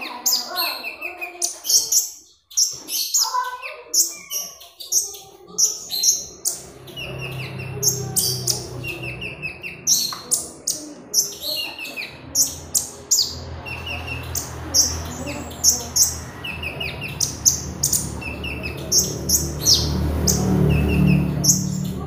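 Caged kolibri ninja sunbird singing busily: a steady run of short high chirps with quick trilled phrases between them. A low steady hum comes in under the song about seven seconds in and grows louder near the end.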